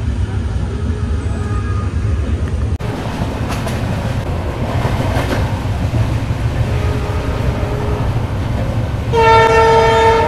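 Steady low rumble of a passenger train, then about nine seconds in a train horn sounds one loud, steady-pitched blast of about a second.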